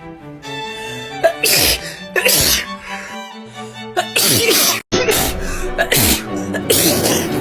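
About four sneezes in a row, each a short sharp burst, with background music playing throughout.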